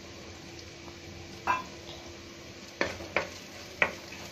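Sliced onions and green chillies frying in oil in a kadai, a steady soft sizzle. From about a second and a half in, a wooden spatula stirs them and knocks against the pan four times.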